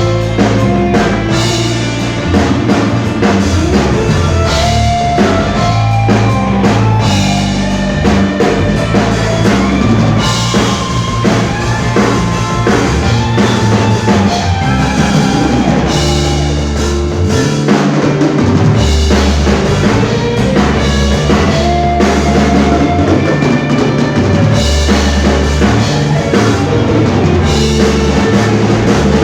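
A band playing live, with a full drum kit (bass drum and snare) keeping a steady beat under a moving bass line and other instruments, continuous and loud.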